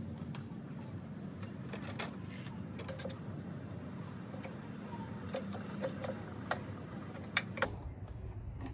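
Scattered light clicks and taps of metal and plastic engine parts being handled and twisted at a hose fitting in a car's engine bay, with a few sharper clicks near the end, over a steady low hum.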